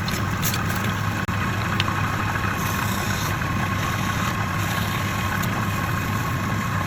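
Wood lathe motor running with a steady hum, with a very brief dropout just over a second in.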